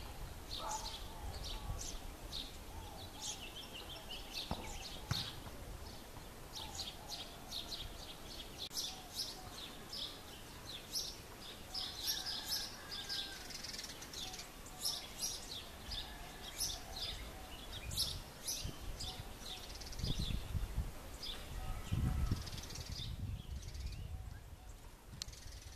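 Bushtits calling: many short, high chirps in quick succession, with a low rumbling noise for a few seconds near the end.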